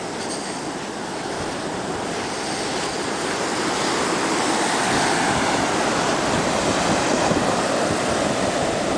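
Atlantic Ocean surf: waves crashing on the beach in a continuous rushing wash that swells louder about halfway through.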